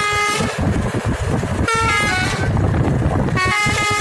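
Telolet multi-tone bus horn, a Basuri set with roof-mounted trumpets, playing three short melodic bursts of stepping notes about a second and a half apart, over a steady low rumble of engines and road noise.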